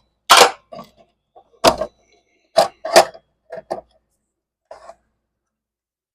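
Irregular metal clinks and knocks, about seven in the first five seconds, from a wrench and the loosened arbor bolt and washer being handled on a miter saw.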